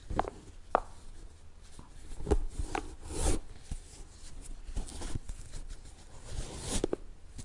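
Shoelaces being tied on a sneaker: a string of short rubbing swishes as the laces are pulled and drawn tight through the eyelets.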